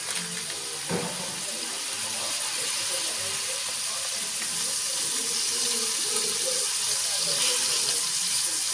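Steady watery hiss of a pot heating on the stove, growing slowly louder, with a light knock about a second in.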